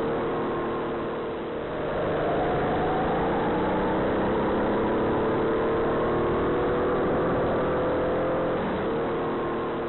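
Racing kart engine speeding up, its pitch rising for a few seconds and then holding steady, easing off near the end.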